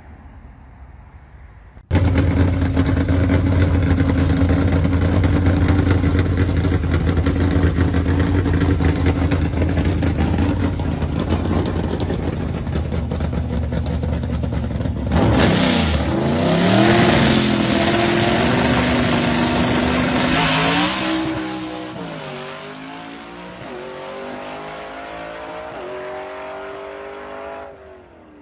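Gasser hot rod's engine running at a loud, steady idle. About halfway through it revs and pulls away, climbing in pitch through a couple of gear changes as it fades.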